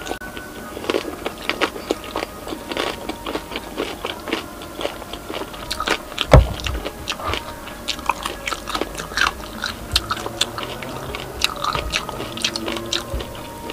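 Close-miked chewing of crispy deep-fried pork knuckle (crispy pata), with many small, irregular crackling crunches of the fried skin. One loud thump comes about six seconds in.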